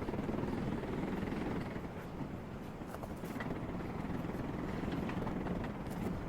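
Strong wind buffeting the microphone in a steady low rumble, with fabric flags flapping and snapping in it as scattered sharp cracks.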